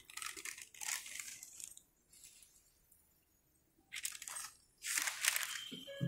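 Newspaper being crumpled and rustled by hand in four short crinkling bursts, with a quiet stretch of about two seconds in the middle.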